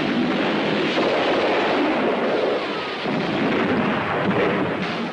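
Explosion sound effect on an old film soundtrack: a dense, steady blast noise that holds for several seconds and eases off a little in the second half.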